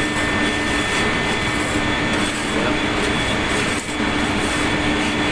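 Steady, loud machinery-room noise from running plant: an even roar with a constant low hum and a steady high whine, dipping briefly about four seconds in.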